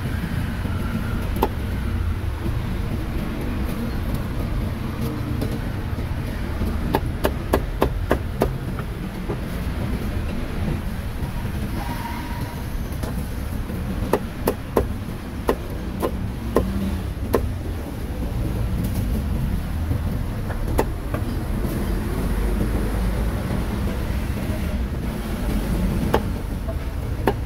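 A heavy cleaver chopping roast meat on a wooden chopping block in several bursts of quick, sharp chops, over a steady low rumble of background noise.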